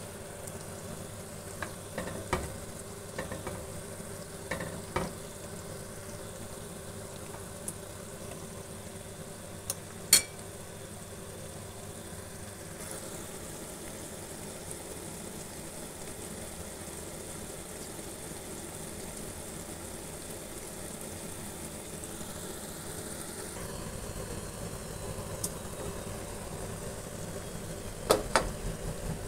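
Meatballs and sliced onions frying in oil in a pan, a steady low sizzle. A few sharp clinks of a metal utensil against the pan, the loudest about ten seconds in and a couple more near the end.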